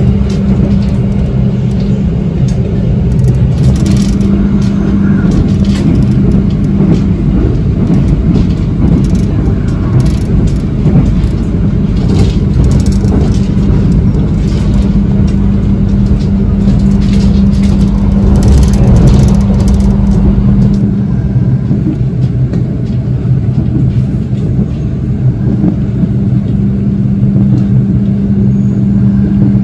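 Passenger train running, heard from on board: a loud, steady rumble from the wheels on the track with a constant low hum under it. About two-thirds of the way through, the deepest part of the rumble drops away.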